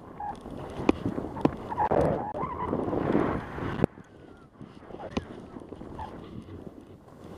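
Burton T7 snowboard riding through deep powder: a rushing hiss of snow under the board, mixed with wind on the microphone and a few sharp clicks. It is loudest for about four seconds, then drops off suddenly to a softer hiss.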